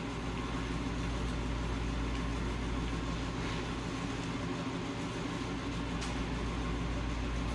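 Steady low machine hum with an even hiss, unchanging throughout.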